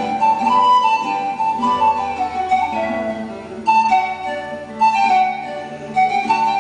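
Pan flute and guitar duo playing: a pan flute melody of held notes over plucked guitar accompaniment, in a church.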